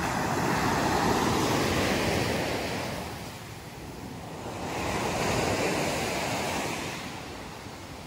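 Low surf breaking and washing up a sandy beach, the rush of the waves swelling and fading twice, with some wind buffeting the microphone.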